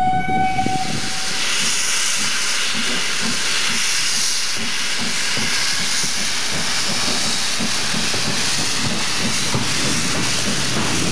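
A steam locomotive's whistle cuts off just under a second in, and a loud, steady hiss of escaping steam follows.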